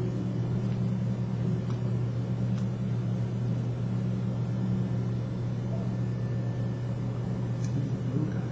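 Steady low indoor hum, even throughout, with a few faint ticks.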